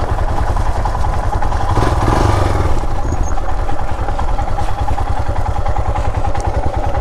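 Royal Enfield Himalayan's single-cylinder engine running steadily as the motorcycle picks its way at low speed over wet mud and rock, with a brief swell about two seconds in.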